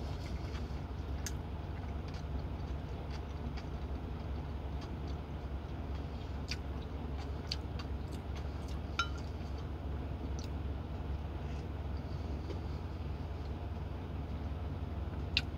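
Steady low hum inside a semi-truck cab, with chewing and scattered small clicks of a wooden spoon against a glass mug of soup; one sharper click comes near the end.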